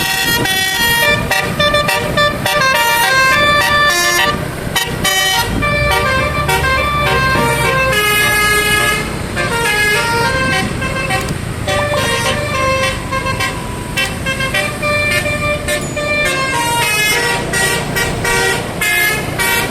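Telolet basuri musical air horn on a truck: several horn trumpets sounding together and playing a fast melody of short notes that step up and down in pitch. A low rumble runs underneath from about five to nine seconds in.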